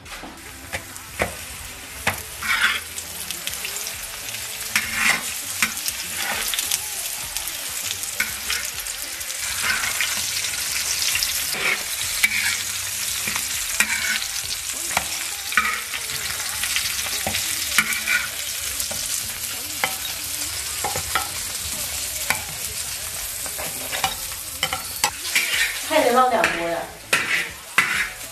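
Filled dough pockets pan-frying in oil in a large black wok, sizzling steadily throughout. A metal spatula scrapes and taps against the wok many times as they are turned.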